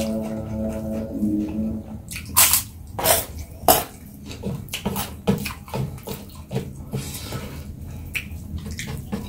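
Close-miked eating: chewing and crunching of crispy fried food, with several sharp crunches, the loudest between two and four seconds in. A faint drawn-out tone sounds in the first two seconds.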